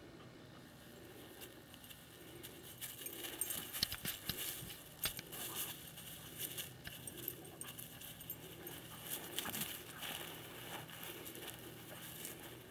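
Rough collie moving about and nosing through grass and dry leaves: a run of small rustles, crackles and clicks, busiest a few seconds in, with light jingling that fits its collar tag.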